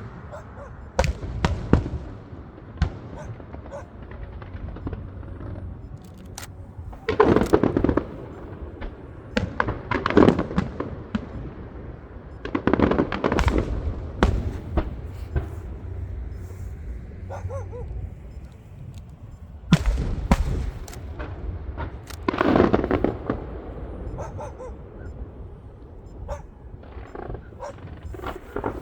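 Fireworks going off: scattered sharp bangs and pops throughout, with several louder bursts of rapid bangs lasting about a second each.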